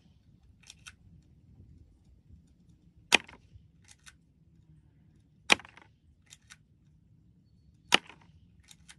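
Spring-powered airsoft pistol firing three sharp snapping shots about two and a half seconds apart, each followed a little under a second later by a softer double click.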